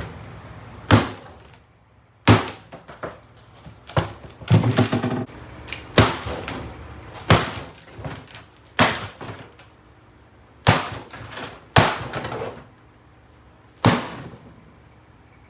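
Heavy blows smashing a Kenmore 564.25502500 mini fridge: about ten sharp impacts, one every second or two, some followed by a short clatter.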